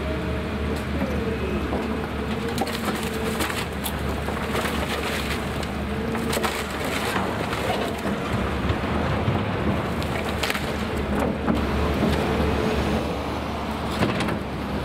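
Excavator diesel engines running with a wavering hydraulic whine, while demolition rubble and timber crunch and crack in irregular bursts.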